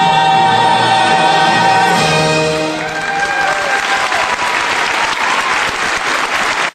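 Live singers and accompaniment holding the final chord of a song, then audience applause breaking out about three seconds in as the music fades under it. The sound cuts off abruptly near the end.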